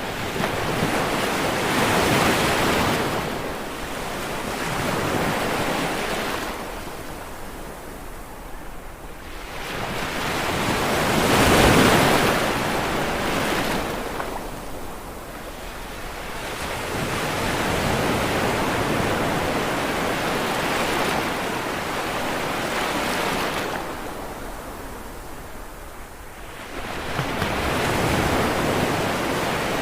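Ocean waves breaking on a shore, each surge of surf swelling and washing back every few seconds, the loudest about twelve seconds in.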